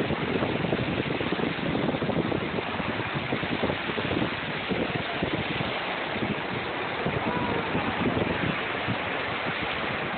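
Surf washing onto the beach, with wind buffeting the phone microphone.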